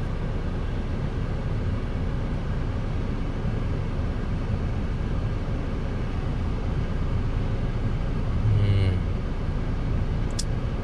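Steady low hum and hiss inside the cabin of a Mazda CX-5 with the engine running and the climate fan blowing, and a short click near the end.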